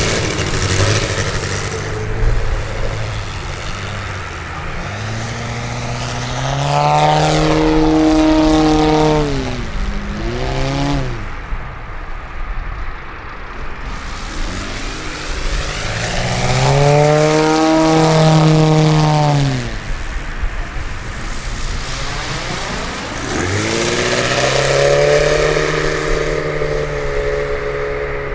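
A Valach 280 B4 four-cylinder engine and propeller on a giant radio-controlled Piper Clipped Wing model plane in flight. Three times the engine note climbs in pitch, holds for a few seconds and falls away as the throttle is opened and closed through aerobatic manoeuvres, with quieter stretches between.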